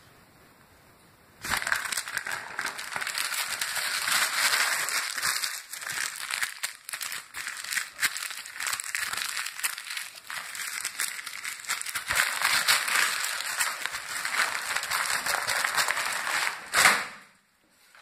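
Glossy magazine pages being crumpled and torn by hand: continuous crinkling and crackling of paper, starting about a second and a half in, with a louder burst near the end before it stops.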